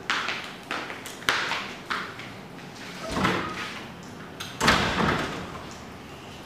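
Footsteps and furniture knocks in a classroom: four sharp steps about half a second apart, then two louder, drawn-out thuds, the loudest about five seconds in.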